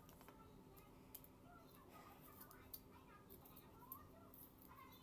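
Faint, scattered cracks and clicks of a boiled egg's shell being peeled off by hand, over near silence.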